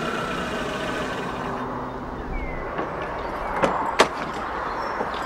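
A car engine running steadily, then switched off under two seconds in. After a short squeak, two sharp clicks follow, typical of a car door being opened.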